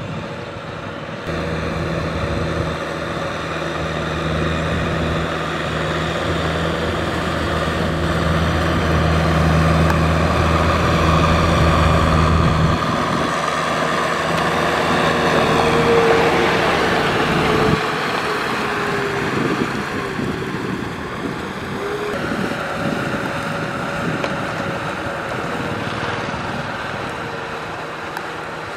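Diesel tractor engine running steadily under load as the tractor churns through a flooded, muddy rice paddy with a rotary tiller. The low engine hum changes character about halfway through.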